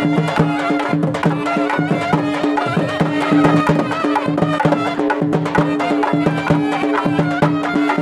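Traditional Indian folk music: drums keep a steady beat under a wavering melody and a held drone.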